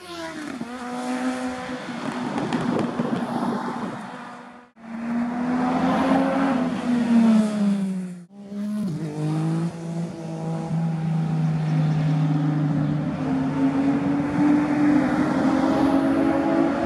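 Sport motorcycle engines running hard as the bikes ride past on a winding road: one engine note climbs and then falls away sharply as a bike goes by, and later another bike's note rises slowly as it accelerates. The sound breaks off abruptly twice, a few seconds in and again about halfway.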